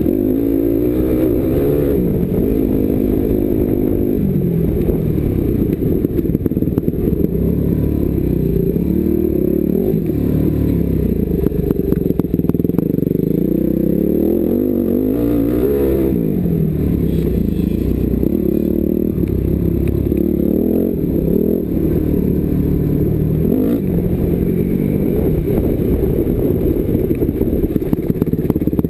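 250cc motocross bike's engine, heard from the rider's helmet camera, revving up and down over and over as it is ridden hard around a dirt track, with the bike rattling over the ruts.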